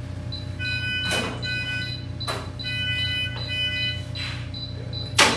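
Electronic beeping from veterinary medical equipment: a short high beep repeating about three times a second, with a lower multi-tone alarm chord sounding twice. Several sharp clicks break in, the loudest near the end.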